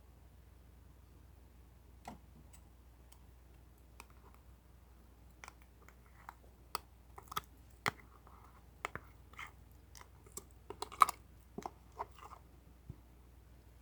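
Slime being pressed and played with by hand, giving scattered small clicks and wet pops, sparse at first and coming thicker from about five seconds in.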